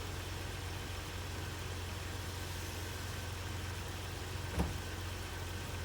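Jeep Wrangler TJ's engine running with a steady low hum, with a single short knock a little over four and a half seconds in.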